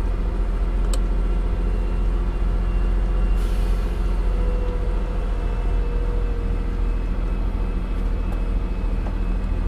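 Scania truck heard from the cab, its engine and retarder running in a steady low drone as it descends a steep grade in low gear with the retarder holding its speed. A faint whine runs through it, and a short air hiss comes about three and a half seconds in.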